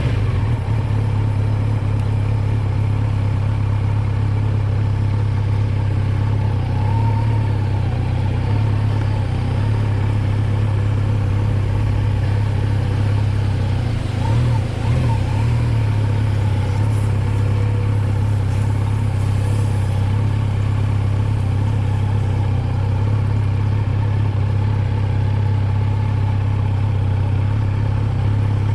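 Kawasaki Z900's 948 cc inline-four engine running at a steady, unchanging pitch, with a brief wobble and slight dip about halfway through.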